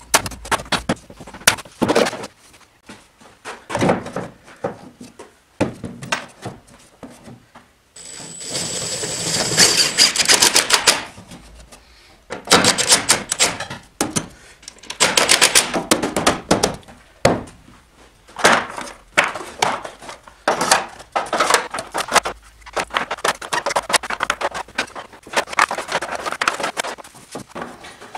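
Irregular clicks, knocks and clatter of a hard plastic drawer cabinet and its drawers being handled. About a third of the way in, a cordless drill runs with a steady whine for about three seconds, driving a screw through the cabinet's back.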